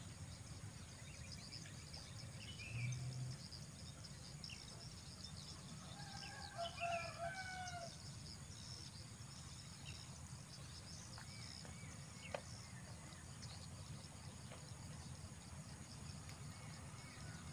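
Outdoor ambience with a steady, faint high insect drone over a low background rumble. A rooster crows once about six seconds in, with a few short bird chirps a little earlier, and there is one sharp click about twelve seconds in.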